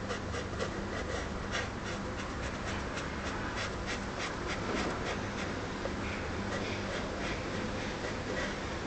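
Felt-tip marker scratching and rubbing on a white plastic mask in quick, repeated strokes as the lips are coloured in, over a steady low hum.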